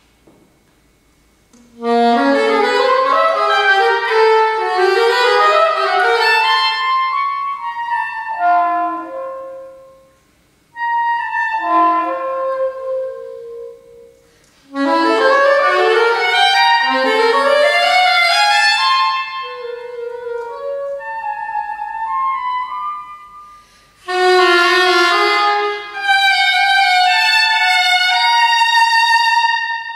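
Solo saxophone playing fast runs of notes in phrases separated by short pauses, starting about two seconds in.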